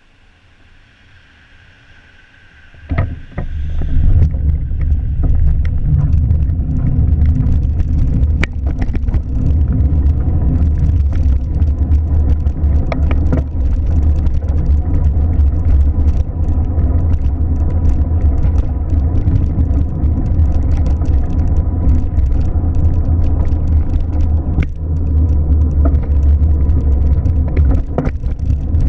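Loud, steady low rumble of a car, starting suddenly about three seconds in, with scattered clicks and knocks over it.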